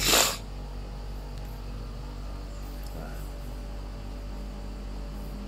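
A short burst of rushing noise right at the start, then a steady low electrical hum.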